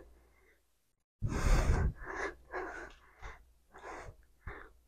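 A woman breathing hard and panting between squat reps. The first breath comes about a second in and is the longest and loudest, followed by a string of shorter, fainter puffs. She is out of breath from the exercise.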